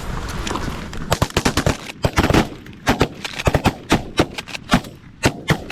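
Several hunters' shotguns firing a rapid, overlapping volley at landing Canada geese, many shots over about four seconds, starting about a second in.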